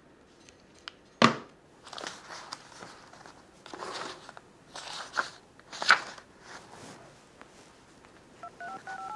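Paper pages rustling as a book is leafed through, several times, the sharpest about a second in. Near the end, a phone's keypad beeps out a number being dialled, one short two-note tone per key.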